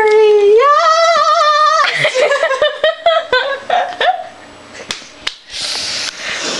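A person making silly wordless vocal noises: one long held squealing note that jumps up in pitch partway, then choppy giggle-like yelps, and a breathy hiss near the end.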